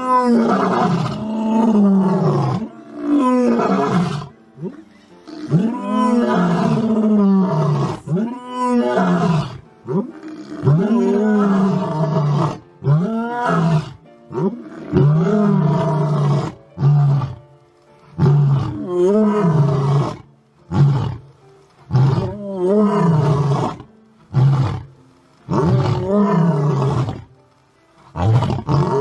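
Male lion roaring: a long bout of repeated roars, each call about a second long and arching up then down in pitch, following one another with short gaps.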